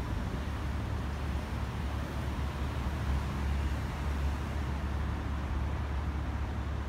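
Steady city street ambience: a constant low rumble of traffic.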